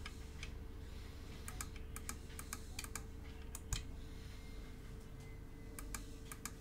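Small push buttons on an FA-VA4 vector antenna analyzer clicking under a fingertip: a string of faint, sharp clicks, some in quick runs of several, as its menu is stepped through, over a faint steady hum.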